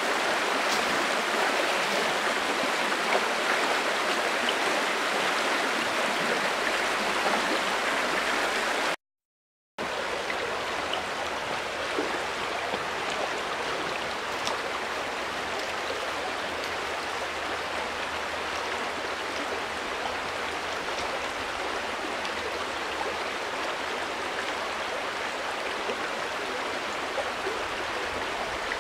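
River water running, a steady rushing flow. About nine seconds in it cuts to a moment of silence, then a second, slightly quieter river recording takes over.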